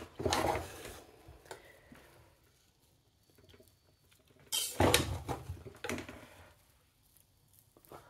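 Slotted metal spatula stirring and turning freshly steamed rice in a metal pot: soft scraping and rustling in two spells, at the start and again about halfway through, with light clicks of the spatula against the pot.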